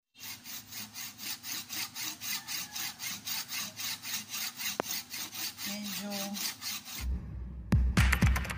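Handsaw cutting through the hard green rind of a large round fruit in quick, even back-and-forth strokes, about four a second. About a second and a half before the end it cuts to upbeat intro music with a heavy beat.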